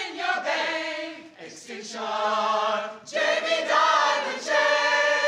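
Gospel choir singing long held notes. The sound dips briefly about a second and a half in, then a louder sustained chord comes in about three seconds in.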